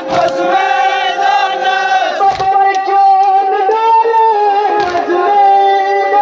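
Kashmiri noha, a Muharram lament, chanted by a group of male voices together in long, held lines. A low thump sounds about every two and a half seconds.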